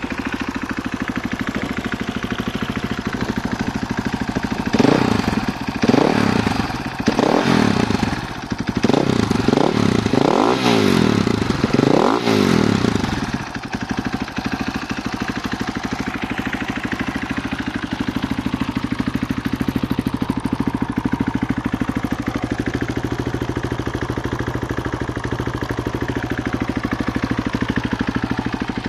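KTM EXC-F 450's single-cylinder four-stroke engine, breathing through an aftermarket FMF 4.1 exhaust, idling. About five seconds in it is given a string of short throttle blips, each revving up and dropping back, for about eight seconds, then it settles back to a steady idle.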